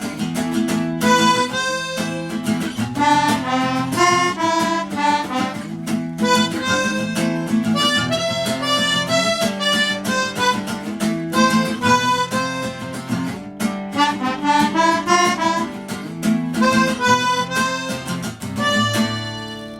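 Instrumental music: a harmonica playing a quick melody over acoustic guitar accompaniment, fading out near the end.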